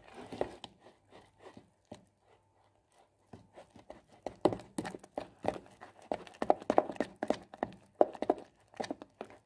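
A spoon mixing thick oat-meal and banana batter in a plastic measuring jug: quick, rhythmic taps and scrapes against the jug. The strokes are sparse at first, then faster and louder from about three seconds in.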